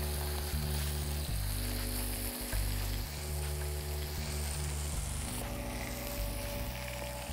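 Chicken escalopes sizzling steadily in hot oil in a frying pan as they are lightly seared, under background music.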